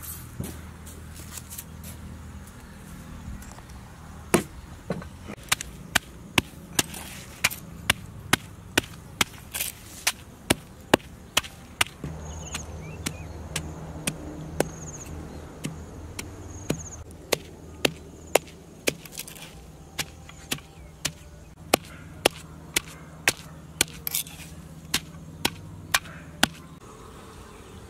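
Wooden pestle pounding chilies, garlic and salt in a wooden mortar: sharp knocks about twice a second, starting about four seconds in.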